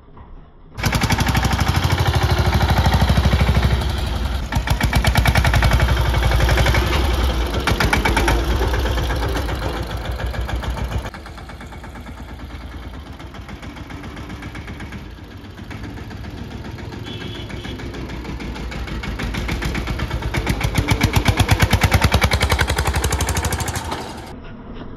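Mahindra Yuvraj 215 tractor's single-cylinder diesel engine running hard with a rapid, even knock of firing strokes. It starts abruptly, drops off sharply about halfway through, builds up loud again and cuts off just before the end.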